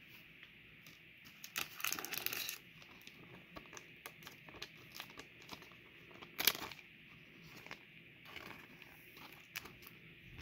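Trading cards being handled and flicked through, with plastic crinkling about two seconds in, small card ticks, and one sharp tap about six and a half seconds in.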